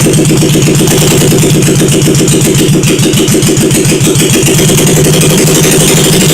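Honda SL350's freshly rebuilt air-cooled parallel-twin engine running loud and steady on its first start after the rebuild.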